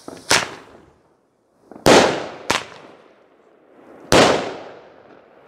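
Blackboxx Vogelschreck ground-to-air salutes (bird-scarer type) firing: four sharp bangs, the two loudest about two and four seconds in, each with a short echoing tail.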